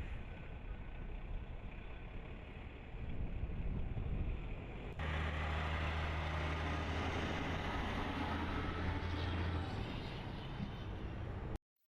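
Steady vehicle rumble with road or wind noise. About five seconds in it cuts to a louder, steadier low drone, and it stops abruptly shortly before the end.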